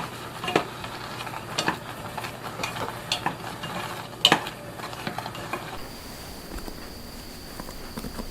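A utensil stirring and knocking in a pan over a sizzling hiss, with irregular sharp clicks, the loudest about four seconds in. About six seconds in it cuts abruptly to a quieter scene with a steady high tone.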